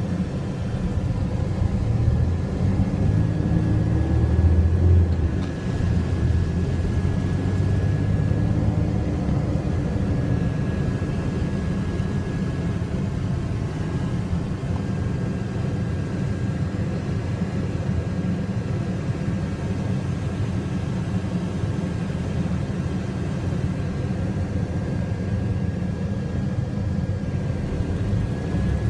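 Steady low rumble of a car's engine and tyres on the road, heard from inside the moving car's cabin, with a faint steady high-pitched tone over it.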